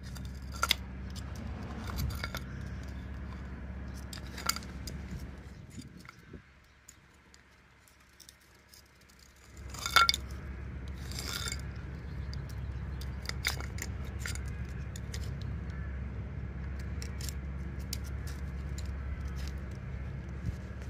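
A chunk of ice clinking and scraping on concrete paving slabs as a small dog paws and noses at it. Scattered sharp clicks and knocks, the loudest about ten seconds in, over a steady low rumble.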